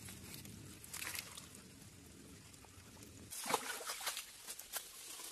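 Hands digging and scooping in wet mud and shallow water, sloshing over a steady low trickle of water. About three seconds in this gives way to scattered crackling, like dry bamboo leaves being stepped on and moved.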